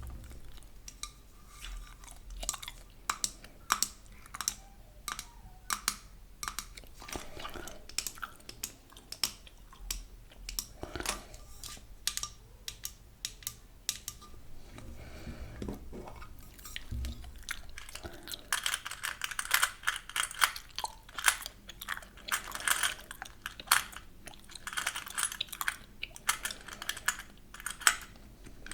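Close-miked gum chewing: sharp, wet clicks and smacks, spaced out at first and coming thick and fast from about two-thirds of the way in.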